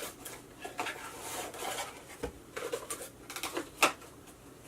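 Packaging being handled: rustling with scattered light clicks and taps, one sharper click about four seconds in.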